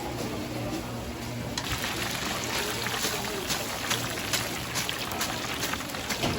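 Restaurant kitchen noise: a steady hiss with frequent light clicks and clatter, growing louder and busier about a second and a half in.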